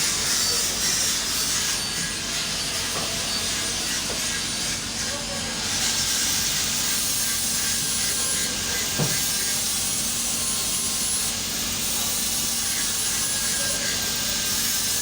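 Argon-shielded (TIG) welding: a steady hiss from the arc and gas with a low electrical hum under it, and one brief click about nine seconds in.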